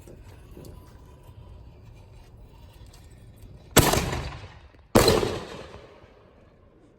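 Two loud consumer fireworks explosions about a second apart, each a sharp bang that trails off over about a second.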